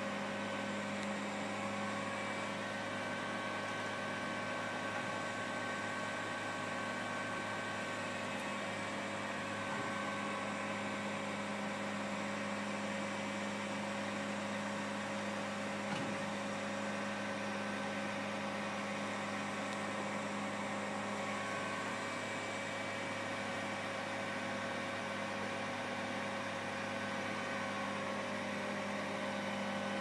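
A large engine running steadily at a constant idle, with a steady whine over it.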